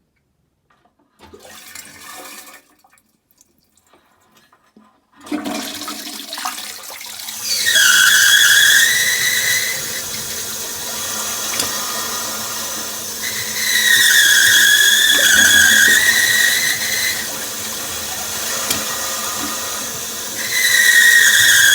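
Daiwa Kasei Sophia FZ500 simple-flush toilet flushing: water starts to rush about five seconds in, and a loud whistling squeal rides on it. The squeal dips and recovers in pitch, swelling three times. It is the abnormal noise that the toilet makes at high water pressure when discharging.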